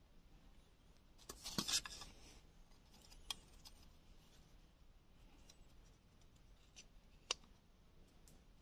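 Faint handling of a bamboo-tube mouse trap: a short clatter and rubbing of bamboo and string about a second and a half in, then two single sharp clicks, one about three seconds in and one later on.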